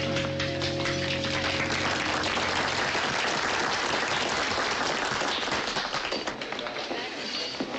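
A dance band's final chord is held and dies away over the first couple of seconds, under a crowd applauding. The applause goes on after the music stops and thins out near the end.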